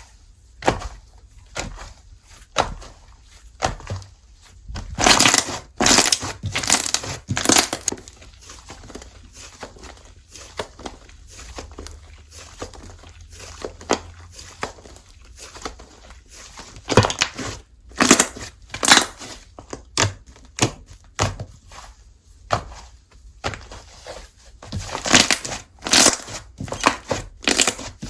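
Slime being squeezed, stretched and pressed by hand, making a run of irregular crackles and pops, with louder flurries at about five to seven seconds in, around seventeen to nineteen seconds, and again near the end.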